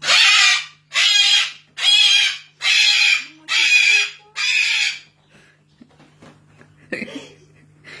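White cockatoo screeching: six loud, harsh calls in a row, about one a second, over the first five seconds.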